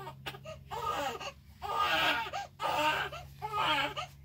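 A baby crying in a string of about five short, high-pitched wailing cries, a sign of a hungry infant.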